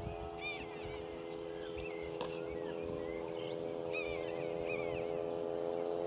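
Wild birds giving short, high chirping calls in small clusters several times, over a steady droning hum that grows slightly louder. A single brief click about two seconds in.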